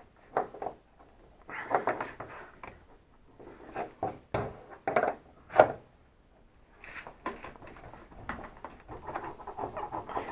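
Irregular metal clinks, knocks and scraping of hand tools as the bolt of the rear beam's silent-block mount is turned and worked loose, the loudest knock about five and a half seconds in.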